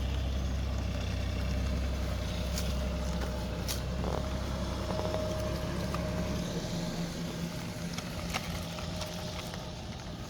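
An engine running steadily with a low hum, its deepest part dropping away about six and a half seconds in, with a few sharp clicks over it.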